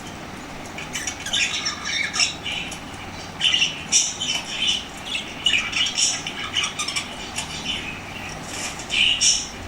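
Small parrots squawking and chattering in rapid, shrill clusters of short calls that start about a second in and come in bursts until the end.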